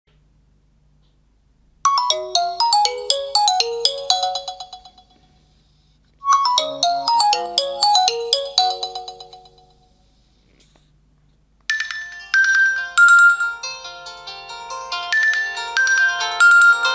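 Nokia 2.2 phone ringtones. A short, bell-like melody of quick notes that fall in pitch plays twice, fading out each time. After a short pause, a second, busier ringtone melody begins.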